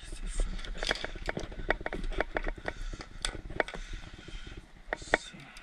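Irregular light clicks and knocks, several a second, from fishing gear being handled in a plastic kayak, over a low wind rumble.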